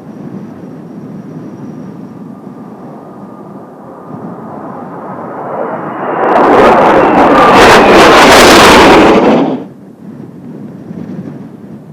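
Kawasaki T-4 jet passing low overhead: its noise swells from about four seconds in, stays very loud for about three seconds, then drops away suddenly. Gusty wind noise before and after.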